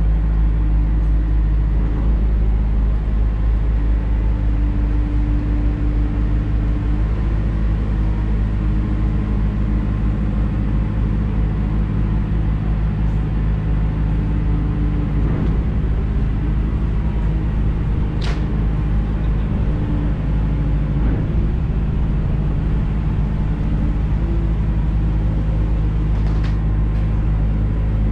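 Fishing netter's diesel engine running steadily at low revs as the boat comes alongside the quay, with a single sharp knock partway through.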